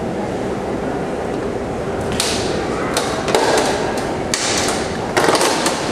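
Steady rumble of a glass-bottom tour boat under way, with a series of sharp knocks and thuds from about two seconds in, the loudest near the end.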